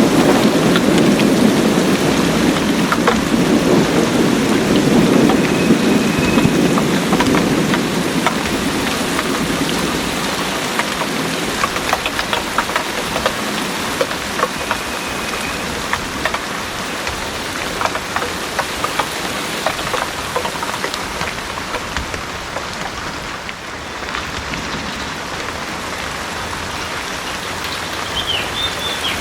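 Heavy rain pouring steadily, with many individual drops pattering on top. A low roll of thunder rumbles under it at the start and fades away over the first ten seconds or so.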